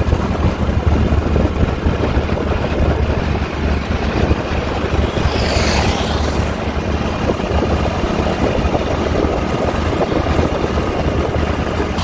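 Steady road and engine noise of a motorcycle ride at highway speed, heavy in the low end with wind rumble on the microphone. A brief higher rushing sound comes about six seconds in.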